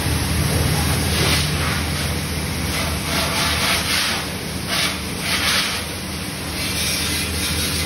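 Pressure washer spraying water onto a motorcycle in several spurts, over the steady hum of the washer's motor and pump.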